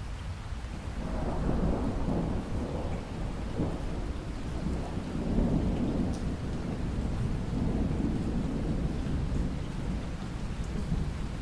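Rolling thunder over steady rain: a low rumble builds about a second in and swells again a few times before easing near the end, with the hiss of rain underneath.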